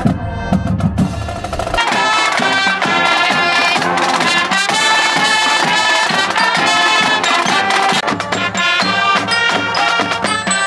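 Marching band drums hitting, then about two seconds in the sound changes abruptly to brighter music with many pitched instruments over a steady percussive beat.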